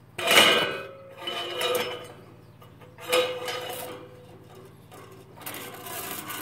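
Steel spiral turbulators of a NIBE Biawar Pellux 200 pellet boiler being drawn up out of its fire tubes: metal clanking and scraping against the tube walls. There are short ringing clanks about half a second in and again around two and three seconds in, then rougher scraping near the end.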